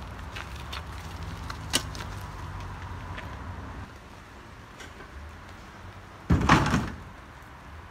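A few faint knocks and clicks, then a loud heavy thud with a scrape lasting about half a second, about six seconds in. A low rumble underneath stops about four seconds in.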